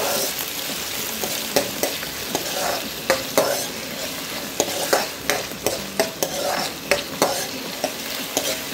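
Chopped onions sautéing in hot oil in a kadhai: a steady sizzle, with the spatula scraping and tapping against the pan as the onions are stirred, a few strokes each second.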